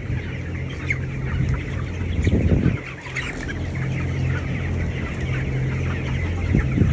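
A large flock of young broiler chickens peeping and clucking, with many short calls scattered through, over the steady low hum of the shed's ventilation fans. A brief low rumble about two and a half seconds in is the loudest moment, and another comes near the end.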